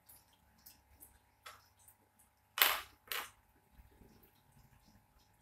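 Plastic parts of an internal aquarium filter being handled and fitted together: a few light clicks, then two short, loud scraping snaps about half a second apart near the middle.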